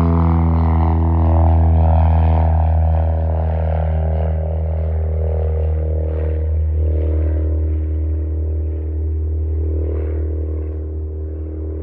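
American Champion 8KCAB Super Decathlon's four-cylinder Lycoming engine and propeller droning steadily as the plane flies past and away, the pitch dropping slightly in the first few seconds and the sound slowly fading.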